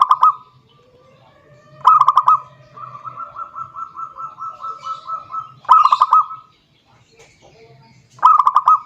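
Zebra dove (perkutut) cooing in four loud short bursts of rapid notes: at the start, about two seconds in, near six seconds and near the end. Between the second and third bursts runs a softer, even string of quick coos.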